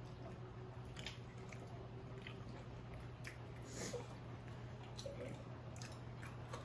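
Faint eating sounds at a table: quiet chewing and a few small clicks of chopsticks and tableware, over a low steady hum.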